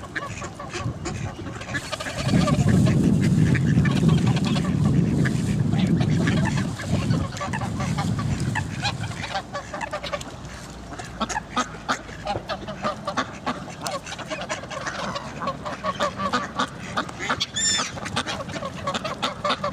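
A flock of ducks and geese calling, with many short overlapping quacks and honks. A loud low rumble covers the calls from about two to nine seconds in.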